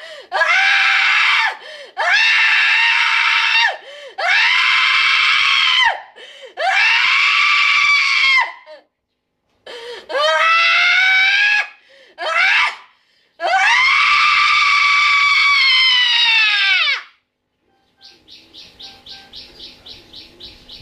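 A person screaming over and over: about seven long, piercing shrieks, each falling in pitch at its end, the last and longest lasting about three and a half seconds. The screams stop about seventeen seconds in, and faint quick chirping pulses follow.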